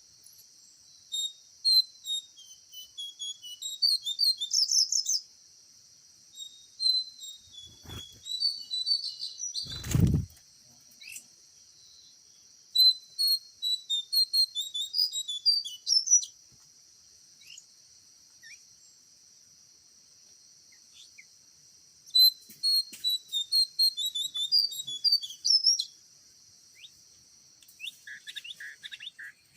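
A songbird chirping in quick bursts of high notes, several separate bouts, over a steady high insect drone. There is one dull thump about ten seconds in.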